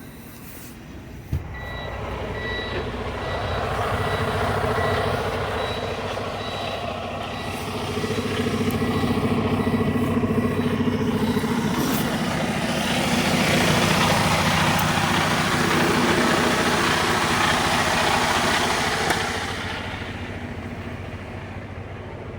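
Semi-truck diesel engine working under load as the rig pushes against the trailer to slide its jammed, frozen tandem, swelling twice and easing off near the end. A sharp click comes about a second in, followed by a few seconds of repeated high beeping.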